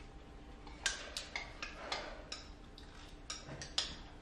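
Eating at the table: about a dozen irregular, sharp clicks of chopsticks against ceramic bowls, with soft slurps of noodles between them.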